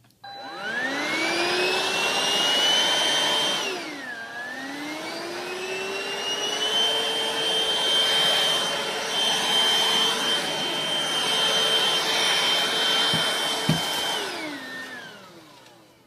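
Hoover BH52210PC Cruise cordless stick vacuum switched on, its motor whine rising as it spins up. The pitch dips briefly about four seconds in and climbs back, then runs steadily before winding down near the end.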